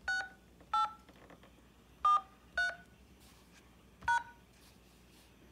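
Five telephone keypad touch-tones, short two-note beeps spaced unevenly over about four seconds: a phone PIN, 6843, keyed in and then the pound key, answering an automated phone menu's prompt.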